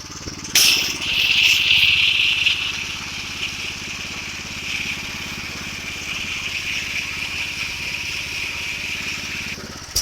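Pressure washer's gas engine running steadily while its X-Jet nozzle sprays concrete-wash solution with a loud hiss that starts about half a second in and cuts off shortly before the end.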